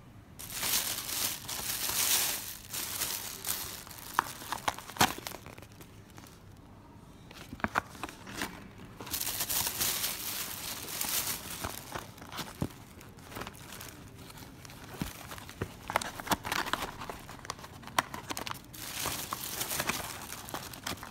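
Thin clear plastic carrier bag crinkling and rustling as it is handled, in several bouts with quieter gaps between them, along with scattered sharp clicks of fingers and the paper takeaway box knocking against it.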